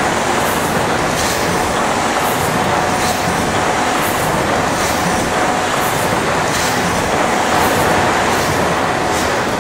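J & E Wood triple-expansion four-cylinder mill steam engine running: a steady, loud mechanical rumble with a soft hissing beat about once a second and a faint steady high tone.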